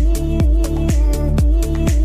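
Background electronic dance music with a steady kick drum at about two beats a second under sustained synth chords.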